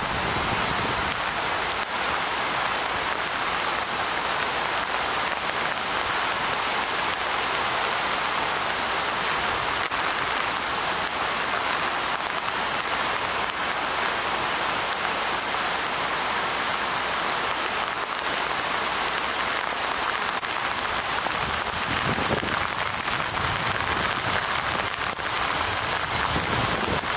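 Heavy rain falling steadily in a continuous hiss. A low rumble joins in near the end.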